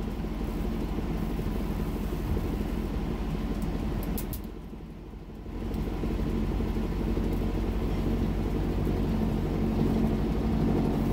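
Van de Graaff generator's electric motor and belt running with a steady hum. The hum drops away for about a second midway, then comes back.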